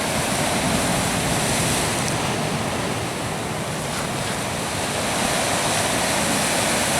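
Ocean swell and surf washing in, a steady wash of water noise without distinct breaking crashes.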